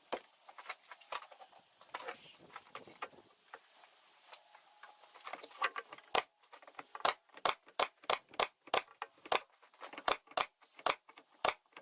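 Nails being driven to fix the wooden top onto the foam-insulated box: sharp strikes about two a second through the second half, after softer handling and rustling.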